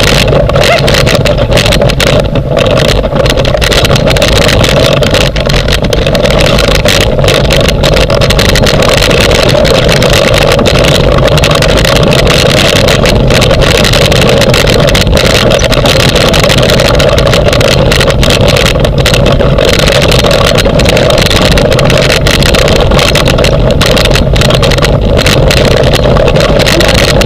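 Steady, loud rushing and rumbling of a dog-pulled dryland rig rolling over a dirt and grass track, with wind buffeting the microphone and many small knocks and rattles from the frame.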